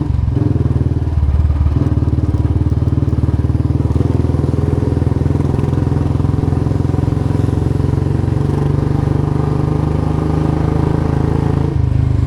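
Royal Enfield Bullet motorcycle's single-cylinder engine running steadily, with a deep, even thump.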